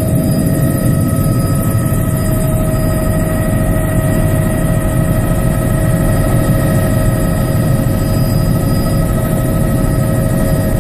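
Bell 206B3 JetRanger helicopter heard from inside the cabin in cruise flight: its Allison 250 turboshaft and rotors make a steady whine over a low rumble, holding even throughout.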